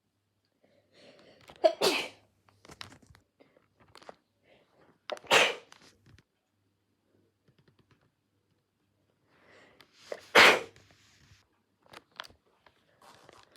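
A person sneezing three times, about four to five seconds apart, each sneeze a sudden loud burst, with softer short noises around and between them. The sneezes are induced.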